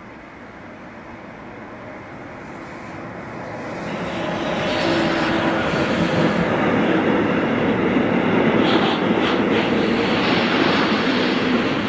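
Electric freight locomotive hauling a container train past at speed. A rolling rumble grows louder as it approaches and is loudest from about five seconds in, as the locomotive goes by. Then the container wagons roll past steadily, with a few clicks of wheels over rail joints.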